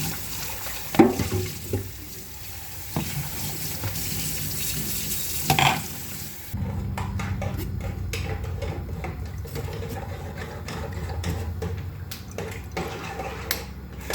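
Lime juice running through a kitchen sieve, with a couple of sharp knocks against the sieve or bowl. About halfway through, the liquid sound cuts off suddenly and a low hum with light clinks follows.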